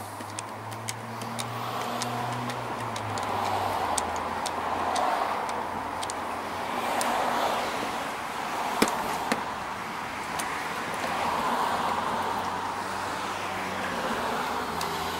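Road traffic going by, its hiss swelling and fading every few seconds over a low steady hum, with a few light clicks about nine seconds in.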